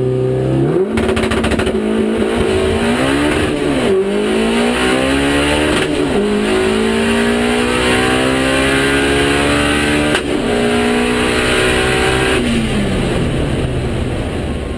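Turbocharged 2.0-litre 20-valve four-cylinder engine of an Audi Quattro drag car on a full-throttle pass: the revs climb from launch, drop three times at the upshifts, then fall away near the end as the driver lifts off.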